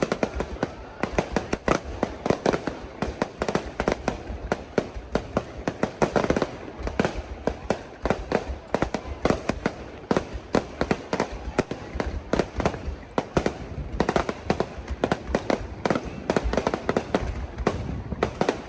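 Fireworks going off in a dense, continuous barrage of sharp bangs and crackles, several a second, with no pause.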